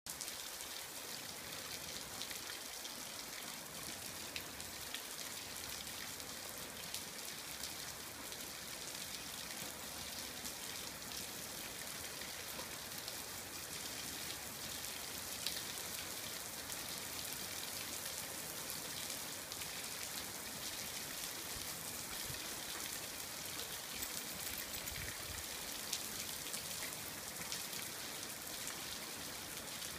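Water from a garden hose splashing onto wet concrete: a steady hiss with scattered small ticks of drops.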